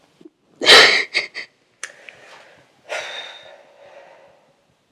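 A woman crying: a loud sobbing gasp just under a second in, two short catches of breath, then a longer breath out that fades.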